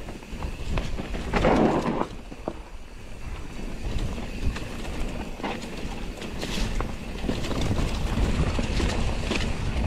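Wind buffeting the microphone over the low rumble of a mountain bike rolling down a rough trail, with a short rattle about a second and a half in and a few scattered clicks and knocks.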